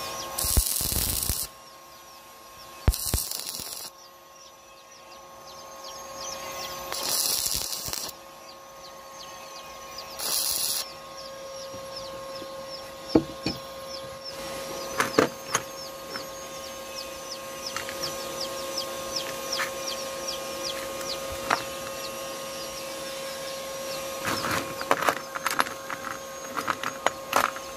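Stick-welding arc struck in four short bursts of crackling hiss, each about a second long, over a steady hum. Later come scattered light clinks of metal parts being handled, bunched near the end.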